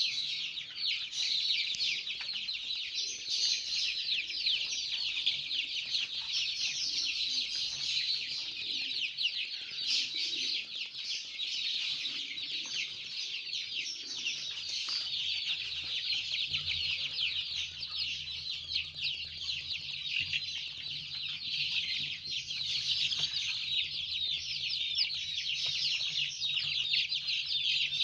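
A pen full of 19-day-old kampung super (Joper) chicks peeping nonstop, many high-pitched calls overlapping. A low steady hum joins about halfway through.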